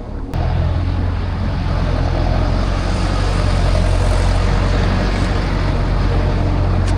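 A motor or engine running with a steady low hum, cutting in abruptly just after the start.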